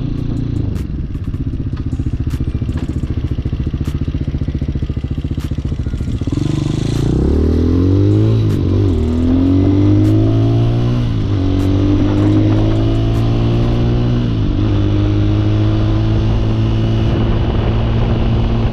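Motorcycle engine running at low speed, then from about six seconds in accelerating up through the gears. The revs rise and dip at each of three shifts, then hold a steady cruise for the last few seconds.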